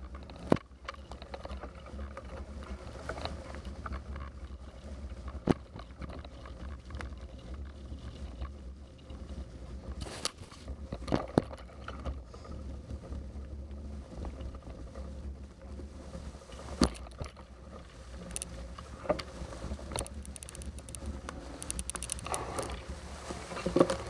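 Bicycle riding over a leaf-covered dirt path: a steady low rumble with scattered sharp knocks and rattles as it jolts over bumps.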